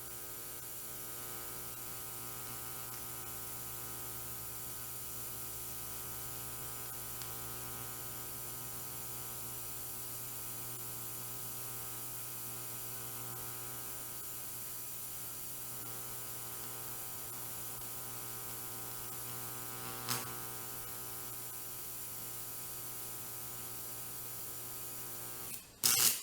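Welding arc from a Miller Syncrowave 250 TIG welder: a steady buzzing hum with hiss. There is a brief click about twenty seconds in, and the arc cuts off suddenly near the end.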